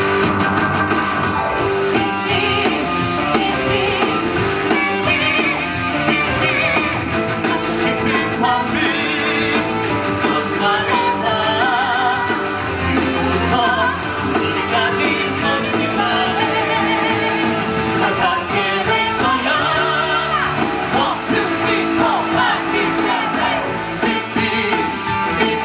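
Live rock song from a stage musical, sung over an amplified rock band with electric guitar.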